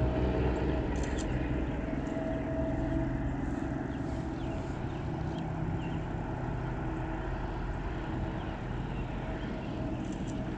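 A steady low mechanical hum from a running motor, holding an even pitch throughout, with a few faint ticks.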